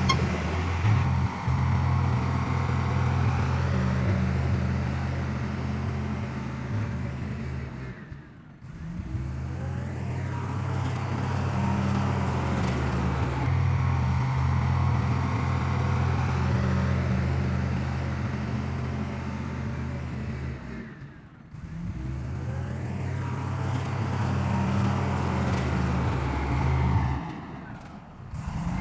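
Heavy diesel engine of earthmoving machinery running steadily at a low, even pitch. The sound drops away briefly three times, about 8 seconds in, about 21 seconds in and near the end, then comes straight back.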